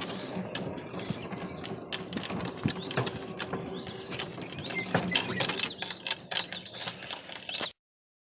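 Small songbirds chirping and calling at a bird feeder, in short high chirps that come more often from about halfway through, with scattered sharp clicks and rustles. The sound cuts off abruptly just before the end.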